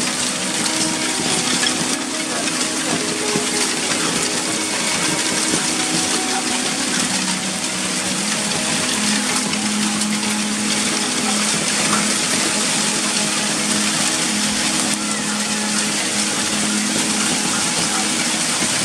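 Hailstorm: a dense, steady hiss of hail and rain beating on terracotta tile roofs, with many small sharp ticks of hailstones striking.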